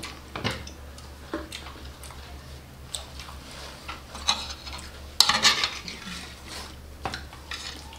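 Metal spoons clinking and scraping against plates and a serving bowl while food is scooped up, in scattered short strokes, the loudest cluster a little past five seconds in.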